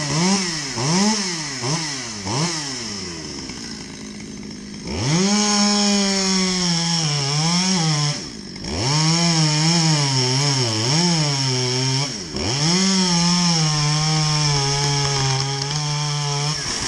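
Two-stroke chainsaw revved in quick blips, settling briefly to idle, then held at full throttle in a cut, its pitch sagging and recovering under load. The throttle is let off briefly twice before the engine drops back near the end.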